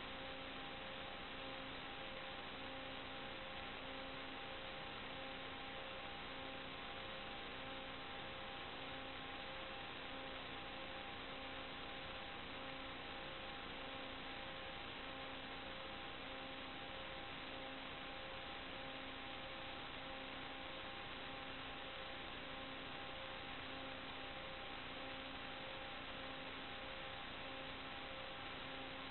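Steady electronic hiss with a few faint steady hum tones and a low tone pulsing on and off about every second and a half, unchanged as the aircraft descends and hovers: noise on the analogue FPV video link's audio channel rather than any sound from the flight.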